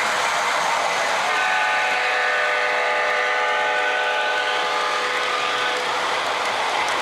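Sound-system horn of an O scale model diesel locomotive sounding one long blast of about four and a half seconds, over the steady running noise of model trains on the track.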